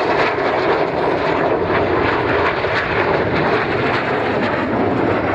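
A BAe Hawk jet in flight, its Rolls-Royce Turbomeca Adour turbofan making a steady, loud rushing jet noise.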